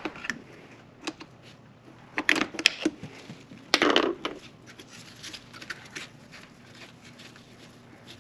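Hand tools and small metal engine parts being handled: scattered sharp clicks, a quick cluster of knocks about two seconds in, and a louder clatter near the middle.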